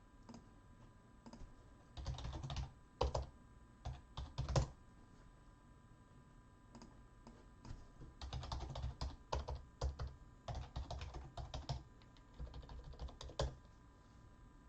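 Typing on a computer keyboard in several short runs of keystrokes with pauses between, the longest run in the second half.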